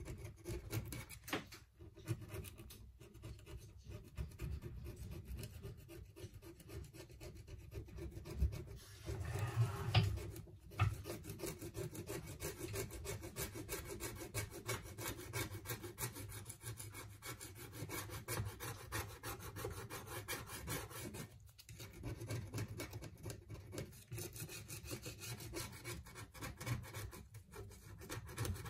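Tools scraping and rubbing against a smartphone, many small scratchy strokes during a screen replacement, with a louder stretch about ten seconds in.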